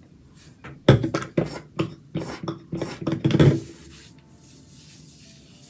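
Foam-pump bottle of curl-enhancing mousse pumped repeatedly, a quick series of short strokes starting about a second in and lasting about three seconds.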